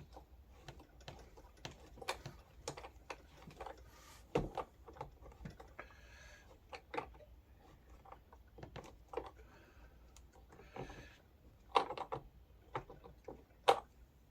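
Irregular small clicks and taps of plastic wrenches working a nut and bolt to tighten a ride-on's rear shock absorber assembly, with a few sharper knocks near the end.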